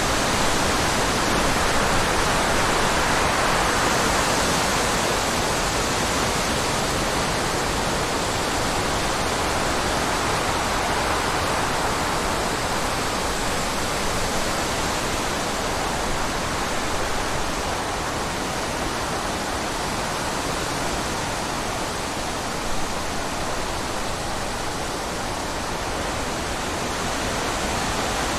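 Steady, even rushing sound of running water, unbroken and without any music or voices.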